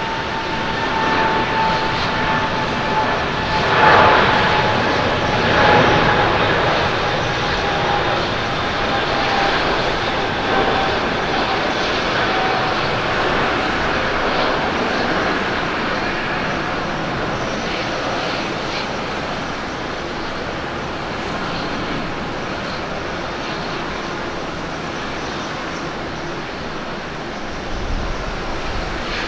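Boeing 777 twin jet engines at takeoff thrust during the takeoff roll and climb-out: a steady roar with a whining tone that slowly falls in pitch. It is loudest about four and six seconds in, then eases as the aircraft climbs away.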